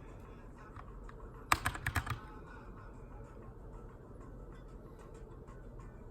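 Typing on a Keychron K2 aluminium mechanical keyboard with Brown switches: scattered light keystrokes, with a quick run of about six much louder key clacks about a second and a half in.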